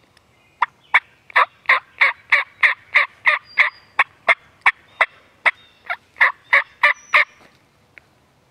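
A long series of about twenty sharp turkey yelps, evenly paced at roughly three a second, with a short break partway through.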